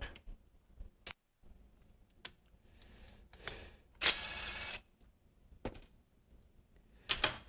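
Small sheet-metal part being bent and handled in a hand bending fixture: scattered metallic clicks and knocks, with a short rasping noise about four seconds in and a few more clicks near the end.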